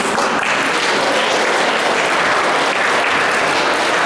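An audience applauding steadily, a dense patter of many hands clapping in a large gym hall.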